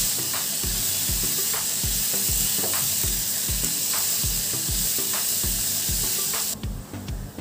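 Grated vegetable momo stuffing sizzling in a hot non-stick pan as a spatula stirs and scrapes it. The sizzle cuts off suddenly near the end. A soft background-music beat pulses underneath.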